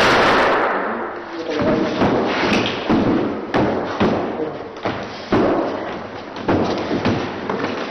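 Scuffling bodies, then a series of sharp thuds and knocks roughly once a second as a man is thrown and dragged across a wooden gym floor in a hand-to-hand takedown.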